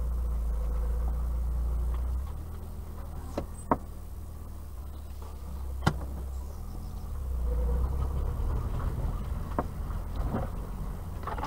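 Vauxhall Astra Mk3 driving along a rutted dirt track, heard from inside the cabin: a low engine and road drone that rises and falls, with a couple of sharp knocks as the car goes over the bumps.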